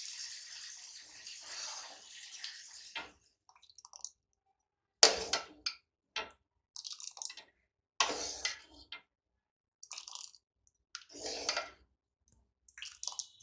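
Thick, sticky chutney being spooned out of a cooking pan into a bowl: a wet scraping sound for the first three seconds, then a run of separate short knocks and scrapes of the spoon against the pan and bowl, about one a second.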